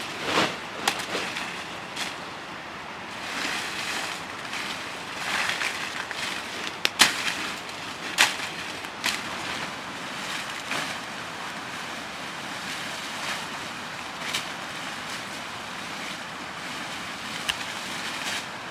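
Leafy tree branches rustling as they are cut and gathered by hand, with sharp snaps of a sickle chopping through twigs every second or few seconds.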